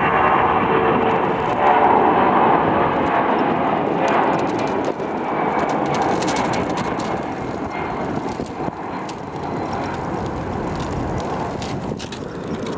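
Boeing C-17 Globemaster III's four turbofan engines at takeoff thrust as it lifts off and climbs away. The roar is loud at first and fades slowly over the last several seconds.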